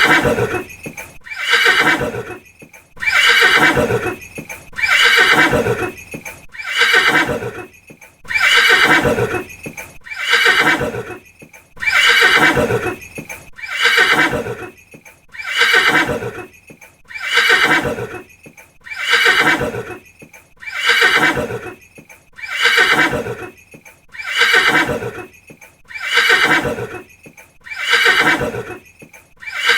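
Horse whinnying over and over, one call about every second and three quarters, each call sliding down in pitch.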